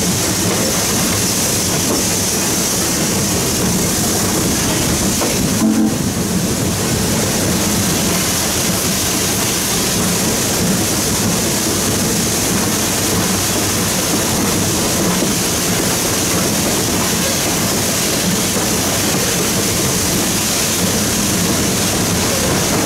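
Southern 630, a 2-8-0 steam locomotive, running slowly, heard from inside its cab: a steady mix of high hiss and low rumble from the moving engine. A brief thump comes about six seconds in.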